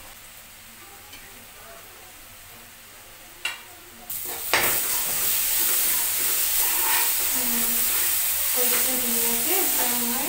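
Vegetables and masala frying in oil in a pan while being stirred with a spatula. After a quiet first few seconds with a single click, a loud sizzle starts suddenly about four seconds in and keeps going steadily.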